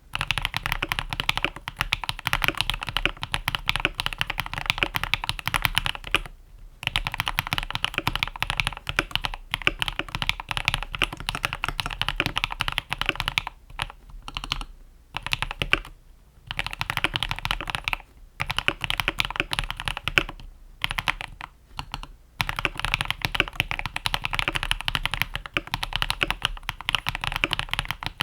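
Fast typing on a Cox Black Pearl mechanical keyboard with lubed and filmed Akko CS Crystal linear switches and PBT Cherry-profile keycaps, modded with PE foam, tape and Holee stabilizer mods. Dense runs of keystrokes, broken by several brief pauses.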